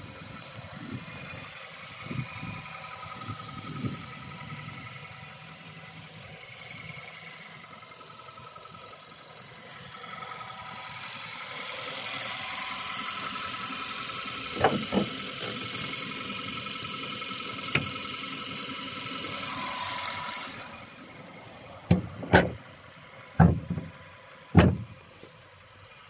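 2015 VW Beetle's engine running at idle under the raised bonnet, with a hiss that builds midway and cuts off suddenly. Near the end come four loud thumps as the bonnet is brought down and shut.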